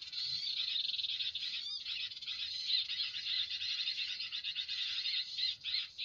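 Many small birds chirping and chattering at once in a dense, continuous high-pitched chorus.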